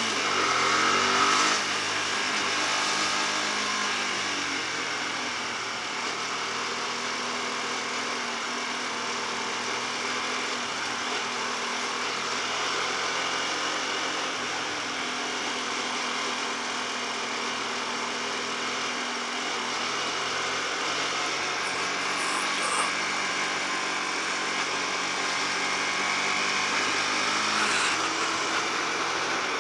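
Hyosung Comet GT250R's 250 cc V-twin engine running at low revs in slow traffic, over wind and road noise. The revs drop over the first few seconds, then shift now and then as the throttle is eased on and off.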